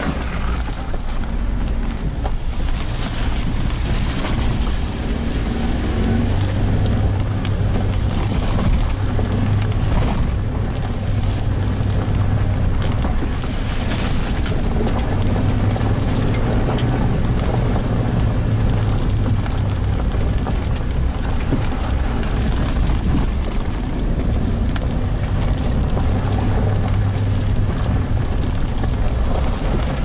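Suzuki Jimny Sierra driving on a rough dirt road: a steady low engine drone that swells and eases now and then, over constant tyre and body noise with many small knocks and crackles from the unpaved surface.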